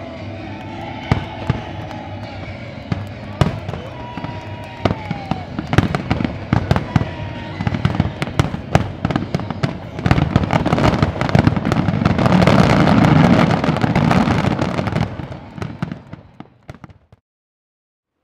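Aerial fireworks display: a steady run of bangs and crackling bursts with a few whistling tones. About ten seconds in it builds to a dense, loud barrage, which fades out and cuts off to silence near the end.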